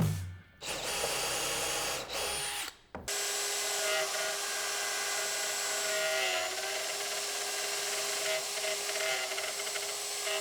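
Handheld power tool running at a steady speed: a short run, a brief stop about three seconds in, then a long steady run with a constant motor whine.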